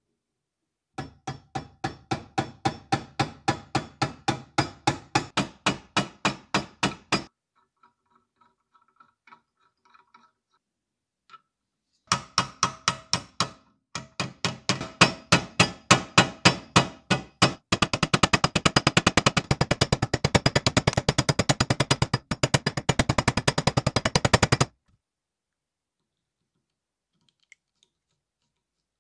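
Hammer tapping metal on a lathe's tailstock, sharp ringing taps at about four a second. A pause follows, then a second run that speeds up to about ten taps a second before stopping.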